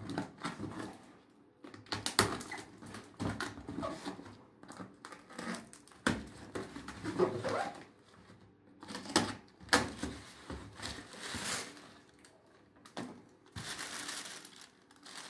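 A cardboard shoebox with clear tape across it being handled and opened, giving irregular scrapes, taps and clicks. Near the end there is a steadier crinkling of the tissue paper packed inside.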